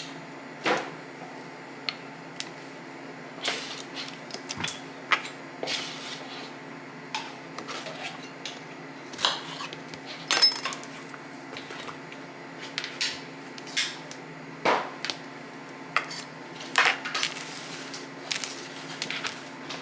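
Irregular metallic clicks, knocks and clatter from an apple peeler-corer-slicer being worked, with apples loaded onto it and cores pulled off. A low steady hum runs underneath.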